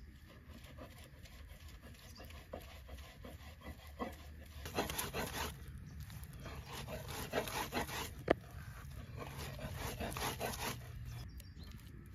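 Bare hands kneading and rubbing a wet herb mixture against the inside of a clay bowl: irregular rubbing and pressing strokes, quieter at first and louder from about five seconds in, with one sharp tap a little after eight seconds.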